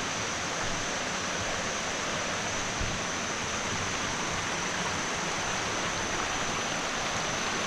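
Steady rushing of a forest waterfall stream, water pouring over rocks, with a faint high tone held above it. There is one soft low thump about three seconds in.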